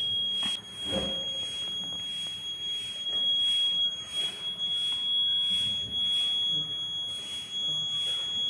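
Electronic buzzer of a flood-alert model sounding one steady high-pitched tone without a break: the alarm that flood water has come. A faint high hiss pulses behind it, about three times every two seconds.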